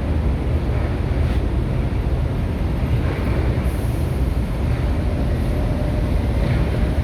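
Steady low engine rumble of road-construction machinery, with a couple of faint short clatters.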